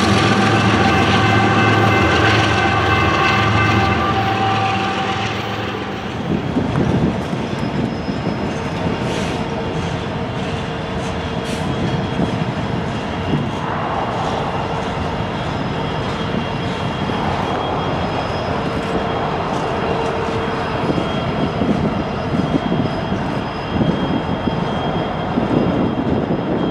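Freight trains passing. First, BNSF diesel locomotives and tank cars run by at speed, with a steady multi-note tone over the engine hum for about five seconds. Then, after a change about six seconds in, a BNSF locomotive and covered hopper cars roll slowly through a rail yard, making an even rumble with occasional clanks.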